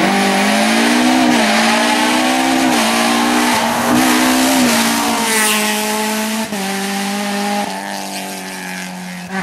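BMW 120d rally car's four-cylinder turbodiesel engine pulling hard as the car approaches, its pitch rising and dropping again and again with throttle and gear changes. It sweeps past a little after halfway and then fades as it drives away.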